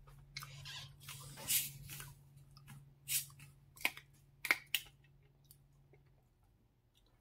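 Plastic Coca-Cola bottle being opened slowly: carbonation hisses out for about two seconds as the cap is first loosened, then a few shorter hisses and sharp clicks follow as the cap is eased off.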